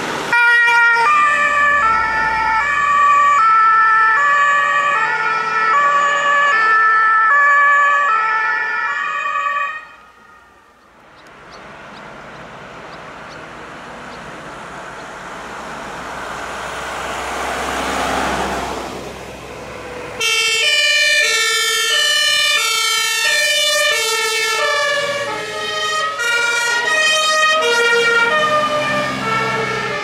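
German two-tone fire brigade horns (Martinshorn) alternating between two notes on a fire engine for about the first ten seconds. A vehicle then drives past with engine and tyre noise swelling and fading. From about twenty seconds in, several two-tone horns sound at once, out of step, as a column of fire engines passes.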